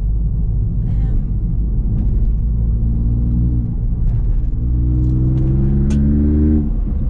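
Mk8 Ford Fiesta ST's 1.5-litre turbocharged three-cylinder engine through a Scorpion valved cat-back exhaust with the GPF deleted, heard from inside the cabin. A steady low drone while cruising turns, from about three seconds in, into a rising engine note under acceleration, which cuts off sharply near the end.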